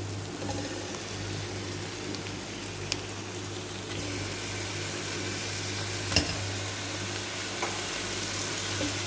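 Onions and garlic sizzling steadily in butter in a stainless steel pot, with a few sharp knocks as raw chicken pieces are set into the pan; the loudest knock comes about six seconds in.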